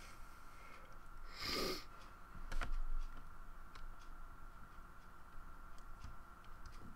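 Quiet room with scattered light clicks, a short breathy rustle about a second and a half in, and a sharper click with a low thump about a second later, over a faint steady high hum.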